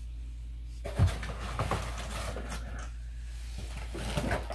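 Cardboard toy boxes being handled: one thump about a second in as a box is set down, then a few light knocks and rustles of packaging, over a low steady hum.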